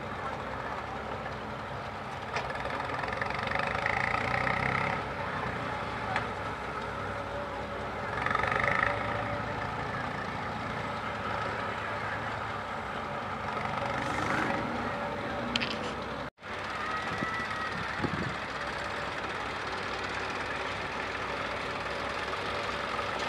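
Diesel engines running steadily as a Caterpillar excavator loads sand into a dump truck, with trucks and tractors idling. The machinery grows louder for a few seconds around four and eight seconds in, and the sound cuts out for an instant about two-thirds through.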